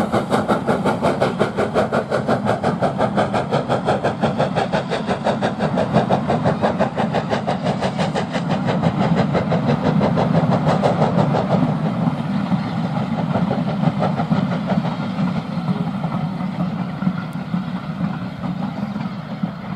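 Steam-hauled passenger train running past: a fast, steady rhythm of beats over the rumble of the carriages. The beats weaken about twelve seconds in and the sound fades slowly as the train draws away.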